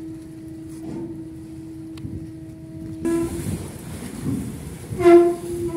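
Steady pitched hum from the docked ferry's machinery. About three and five seconds in come two short, louder pitched blasts; the second is the loudest sound.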